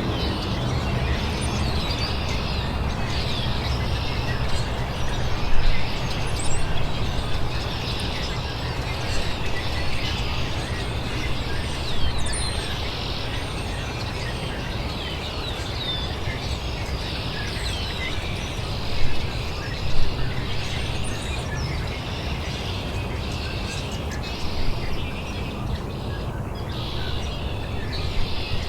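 Songbirds chirping: many short calls and quick pitch sweeps throughout, a few of them louder, over a steady low rumble.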